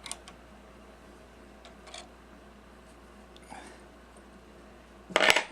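Faint clicks of small hand tools and metal parts being handled on a workbench, then a brief louder clatter near the end.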